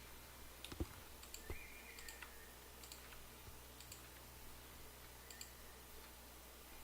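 Scattered computer mouse clicks, a few loud ones about a second in and the rest faint, over a steady low hum.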